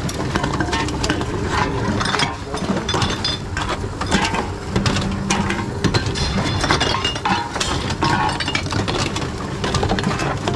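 Reverse vending machines taking in empty bottles and cans: an intake motor hums steadily while glass bottles and aluminium cans clink, knock and rattle through the machines in a quick, irregular stream of clicks.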